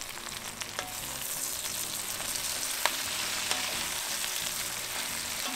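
Fresh greens (kale, spinach and broccoli) sizzling in hot oil in an enamelled cast-iron Dutch oven as a wooden spoon stirs them. The sizzle grows stronger about a second in, with a few sharp clicks along the way.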